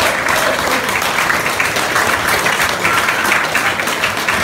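Audience applauding: dense, steady clapping from a roomful of people, with one pair of hands clapping right beside the microphone.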